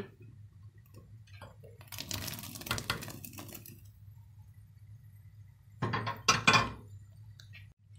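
Small bulgur köfte balls slid from a glass baking dish into a steel pot of boiling lentil water, splashing for a couple of seconds. About six seconds in the glass dish clinks sharply against metal several times, the loudest sound here.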